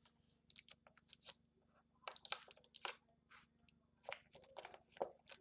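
Cardboard toy box and its packaging being handled and opened by hand: a run of short, irregular crinkles, scrapes and clicks.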